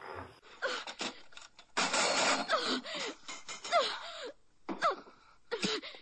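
A person's short cries and whimpers, several with pitch falling away, amid rustling and sharp knocks, with a loud rough burst about two seconds in.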